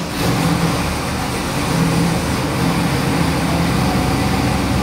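Aluminum-block LS 427 cubic-inch V8 crate engine running on an engine dyno. It comes in suddenly right at the beginning, then runs steadily at an even speed.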